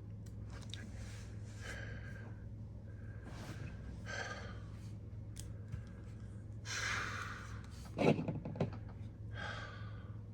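A person breathing audibly close to the microphone, five or six separate breaths, while small plastic clicks come from an action figure being handled. About eight seconds in there is a sharp knock, the loudest sound, with a smaller one just after. A steady low hum runs underneath.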